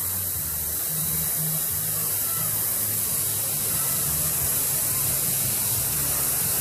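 Steady hiss of rushing water on a water-park slide, with an uneven low rumble underneath.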